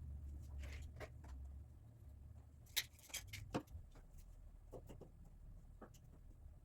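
Scattered light clicks and knocks of hand tools and metal parts being handled while working on an engine, the sharpest a few seconds in. A low rumble fades out over the first two seconds.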